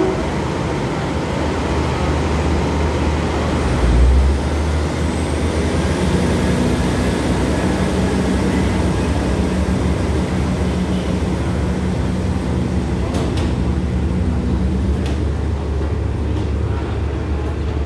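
Diesel multiple-unit train running out of the station, its underfloor diesel engines and wheels rumbling steadily as the carriages roll past and the train draws away. There is a brief low thump about 4 seconds in.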